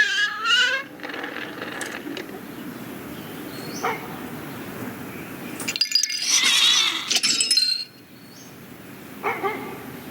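Animated-film sound effects of toys moving: a pitched call that ends just under a second in, a soft tick about four seconds in, and a busy, louder stretch with a wavering high squeal from about six to nearly eight seconds, then a short squeak near the end.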